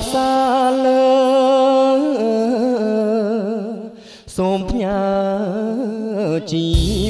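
Male vocalist singing a Khmer sentimental song into a microphone with the band dropped out. He holds a long steady note, then sings wavering runs with vibrato, breaking off briefly about four seconds in. The backing band comes back in just before the end.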